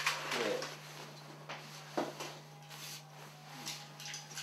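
Scattered, quiet snatches of a person's voice, with a couple of soft knocks and rustling, over a steady low hum.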